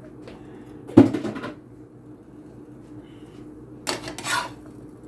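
A metal spatula knocks and scrapes against a nonstick frying pan about a second in, then scrapes again near the end as a grilled cheese sandwich is slid out of the pan.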